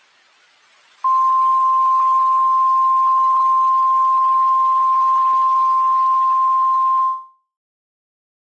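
Weather radio alert tone: one steady, high single-pitched tone over radio hiss, held for about six seconds before fading out. It signals that a warning broadcast follows.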